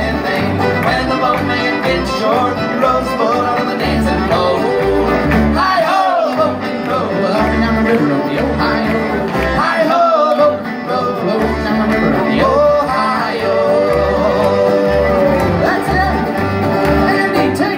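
Live bluegrass band playing an instrumental break: fiddle, banjo and acoustic guitar over a steady low beat.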